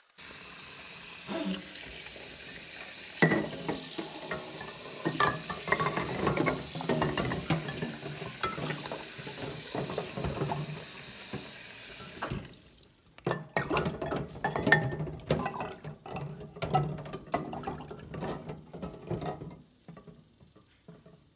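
Kitchen tap running into a stainless steel sink filling with soapy water, with small ceramic mugs clinking and knocking as they are set in. The tap shuts off a little past halfway, and the mugs go on clinking and knocking in the water.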